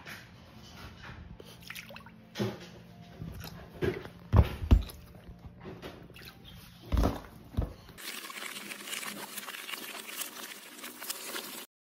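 Puppies wading in shallow water in a plastic kiddie pool: water sloshing and dripping, with a handful of heavy splashes and thumps, the loudest about four and a half seconds in. About eight seconds in the sound switches abruptly to a steady hiss-like crackle, which cuts off just before the end.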